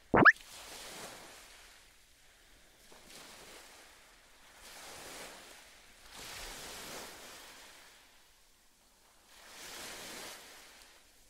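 A short, loud, rising squeal in the first moment, then ocean surf: soft swells of waves washing in and fading away about every two to three seconds.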